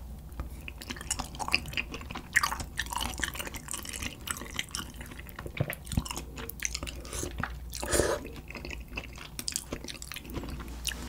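Close-miked chewing of spicy chicken feet in red sauce: many small, irregular smacking and clicking mouth sounds, a little louder about two and a half seconds in and again about eight seconds in.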